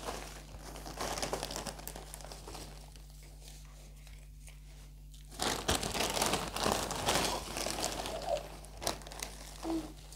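Plastic potting-soil bag crinkling and rustling as a hand digs into it and scoops out soil, quieter for a few seconds, then louder from about halfway through.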